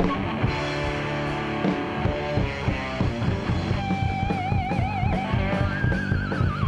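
Live heavy metal band playing: electric guitar, electric bass and drum kit on a steady rock beat. About four seconds in, a high held note with wide vibrato comes in over the band.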